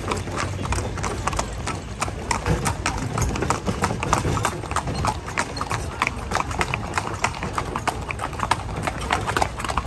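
Carriage horse's hooves clip-clopping on the road in a quick, even rhythm as it pulls a horse-drawn calèche, over a steady low rumble.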